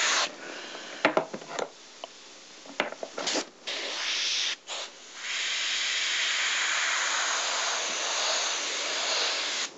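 Double-action airbrush spraying with a hiss of compressed air. It breaks off early, and a few short spurts and small handling sounds follow. From about five seconds in it runs steadily, then cuts off sharply near the end.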